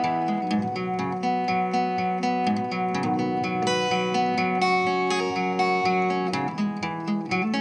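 A recorded piece of strummed guitar music played back through a Pioneer 202W reverberation amplifier, with a little of its spring reverb added. The chords ring on steadily.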